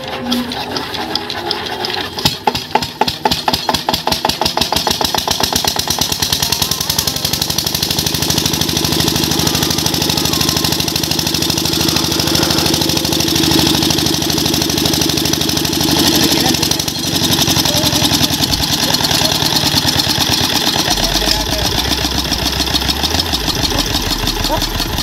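Small hand-cranked irrigation water-pump engine being started: a few separate loud firing strokes about two seconds in, then it catches and runs on steadily.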